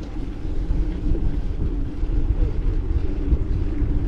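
Wind buffeting the microphone of a moving mountain bike: a steady, loud low rumble with a faint, even hum underneath.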